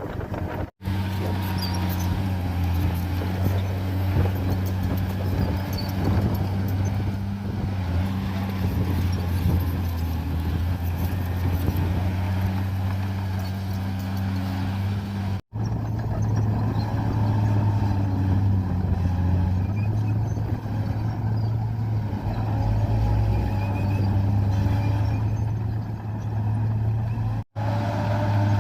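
Komatsu bulldozer's diesel engine running steadily under load as it pushes soil, a deep even drone, broken by three very short silent gaps where the footage is cut.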